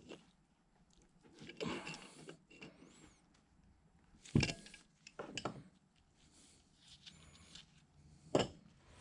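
Pliers working on a metal coolant pump housing: a few sharp metal clicks and knocks, the loudest about four and a half seconds in and again near the end, with handling rustle in between.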